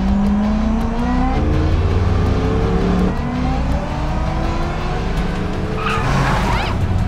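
Car engines revving hard and pulling through the gears during a street race, the pitch climbing in long sweeps and dropping back at each shift, twice. Near the end, tyres squeal in short sliding cries.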